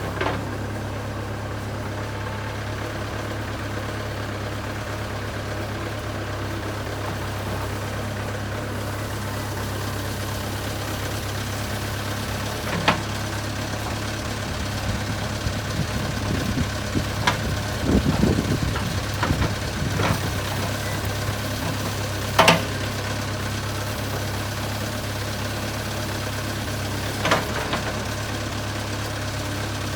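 Diesel engine of a JCB 3CX backhoe loader running steadily. A few sharp knocks are heard, and there is a rougher, louder stretch about halfway through.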